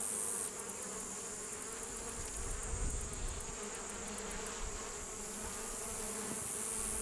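Honeybees buzzing around an opened hive box as a frame is lifted out of the honey super: a steady, dense drone of many bees.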